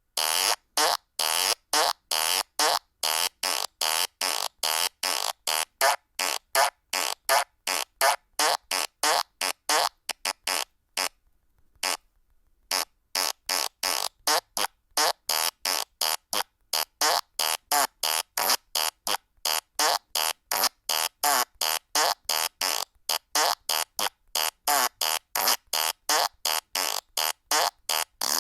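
Fart sound effects from a phone soundboard app, played one after another at about three short farts a second, with a pause of about a second about eleven seconds in.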